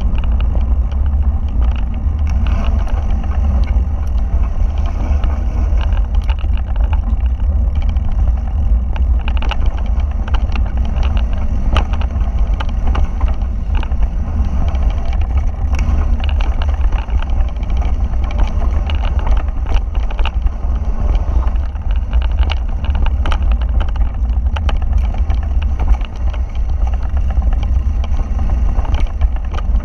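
Wind rumbling over a GoPro's microphone as a mountain bike rides fast along a dirt singletrack, with constant rattling and clicking from the bike and its tyres on loose stones and dirt.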